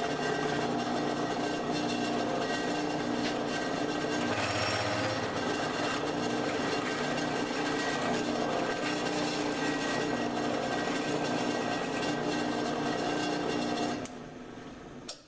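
Drill press running, its twist drill boring into a metal clamp body held in a vise: a steady motor hum under dense cutting noise. The noise drops away sharply near the end.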